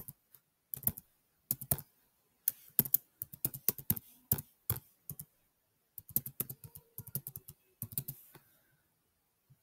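Typing on a computer keyboard: quick runs of keystrokes separated by short pauses, stopping near the end.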